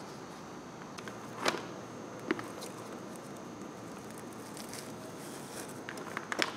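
Faint clicks and light ticks of a hand screwdriver driving hex cap screws into a 3D-printed plastic gauge bezel, two sharper clicks about a second and a half and two seconds in, over a low steady hiss.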